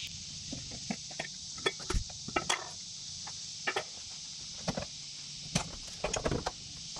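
Irregular light clicks, knocks and clinks, about fifteen in all, of the air cleaner assembly being unclipped and lifted off a 1986 GMC S15's engine.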